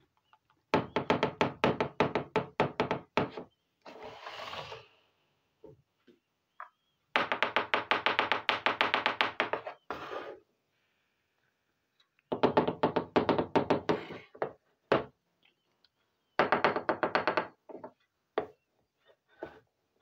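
Small plastic miniature toys tapped and knocked in quick runs of several knocks a second, in four bursts of two to three seconds each. There is a short scraping rustle between the first two bursts.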